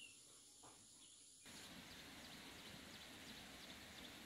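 Near silence, then from about a second and a half in faint outdoor countryside ambience with scattered faint high chirps; one short falling chirp comes just at the start.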